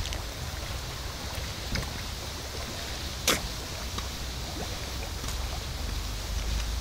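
Water splashing steadily onto a garden pond's surface, with low wind rumble on the microphone and one sharp click about three seconds in.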